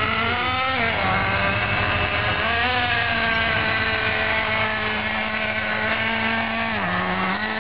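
Traxxas Jato 3.3 nitro RC truck's small two-stroke glow engine running hard at part throttle with a high whine, held in first gear without shifting to second. Its pitch drops about a second in, climbs again shortly after, holds steady, then dips and recovers near the end.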